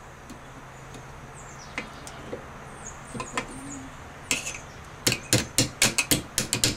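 Light metal-on-metal tapping as a small 1/16-inch rivet is started into a rifle receiver to hold the bolt hold-open. A few faint clicks give way, about five seconds in, to a rapid run of sharp taps.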